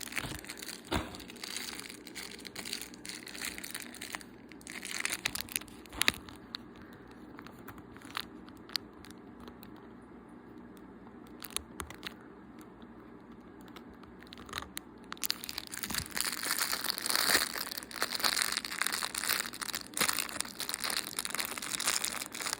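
Plastic packaging bag crinkling as it is handled, with a few sharp clicks. The crinkling comes in two spells, with a quieter stretch in between.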